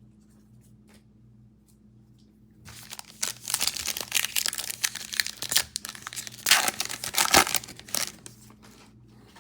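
Foil wrapper of a pack of football trading cards being torn open and crinkled, starting about three seconds in and lasting about five seconds.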